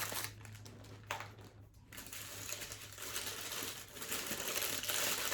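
Paper food wrapper rustling and crinkling: a few short rustles, then about three seconds of continuous crinkling from about two seconds in, over a steady low hum.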